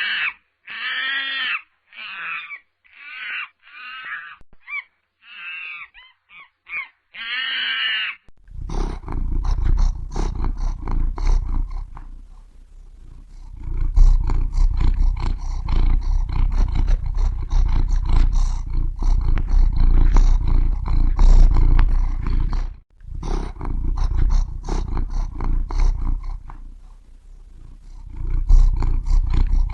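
A crow cawing about ten times in a row. Then, from about eight seconds in, a big cat's deep, rough growling and roaring, with a brief break near the end.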